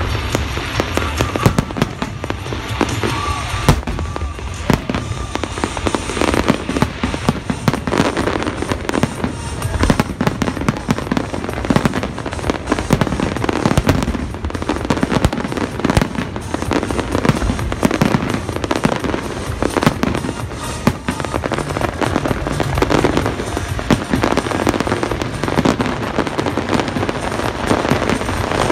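Aerial fireworks: shells bursting overhead in quick succession, sharp bangs and crackling coming thick and without pause.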